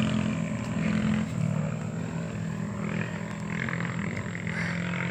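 Off-road rally motorcycles' engines running as the bikes pass, a steady drone that eases off over the first second or two.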